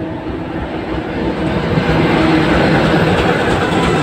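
Diesel locomotive engines of an S200 (ChME3) shunter convoy running as the locomotives pull slowly past, with a steady low engine drone. The sound grows louder until the lead engine draws level about two seconds in, then holds.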